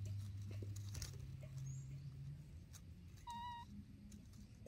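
Baby macaque giving one short, high, clear call about three seconds in, its contact call for its brother.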